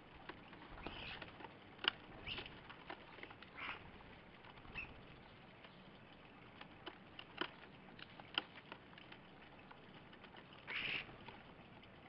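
Starlings pecking at dried mealworms on a wooden bird-table tray: a scatter of sharp irregular taps, with a few short squeaky sounds among them and a longer one near the end.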